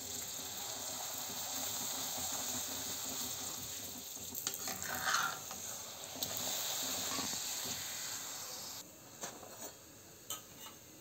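Poori deep-frying in hot oil: a steady sizzle that cuts off suddenly about nine seconds in, with a few light clicks and knocks in the middle and near the end.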